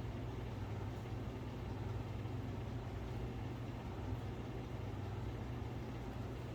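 Steady low hum with no clear knocks or changes: a machine-like background drone, such as a running appliance or ventilation.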